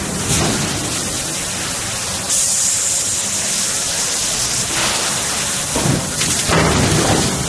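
Hydraulic press machinery running: a steady rushing hiss, with a higher hiss joining about two seconds in and several louder rushes in the second half.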